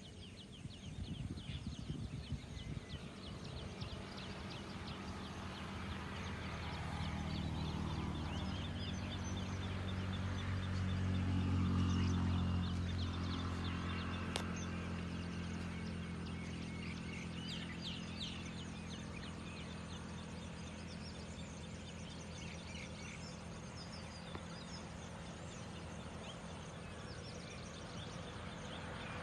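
Many birds chirping and calling in open countryside, with a low engine hum that grows to its loudest about twelve seconds in and then slowly fades, as of a motor passing at a distance.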